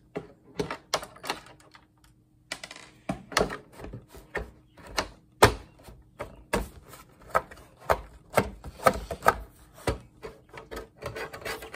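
Irregular sharp clicks and knocks of hand tools striking and working at the casing of an old monitor being taken apart, several a second with a brief pause about two seconds in.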